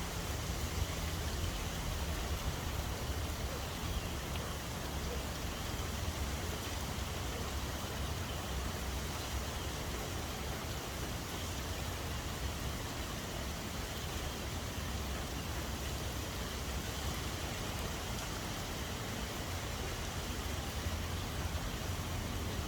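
Steady rain falling, an even hiss of drops with a low rumble beneath it.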